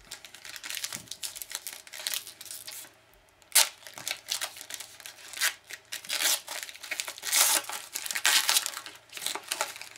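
Foil wrapper of a hockey card pack being handled and torn open: irregular crinkling and crackling, with a sharp crack about three and a half seconds in and denser crinkling in the second half.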